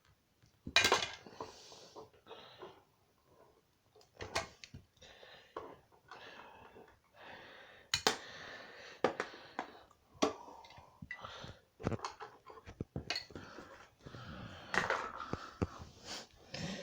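Hard plastic wrestling action figures being knocked together and handled: irregular sharp clacks, the loudest about a second in, with scuffing and breathy noises between them.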